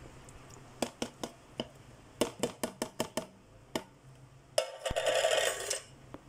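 A metal spoon clicking sharply against the bowl and packaging, about a dozen times in quick irregular taps, while ingredients go into the fruit salad. Near the end comes about a second of rustling, scraping noise from handling the package or stirring the mix.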